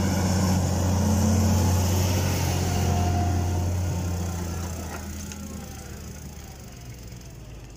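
Fendt 930 tractor's six-cylinder diesel engine working under load as it pulls a four-furrow plough close past, a steady low drone that fades over the last few seconds as the tractor moves away.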